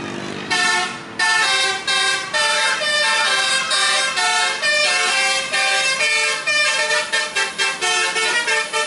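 Bus telolet horn, a set of multi-tone air horns, playing a quick tune of short notes starting about half a second in, the notes coming choppier near the end.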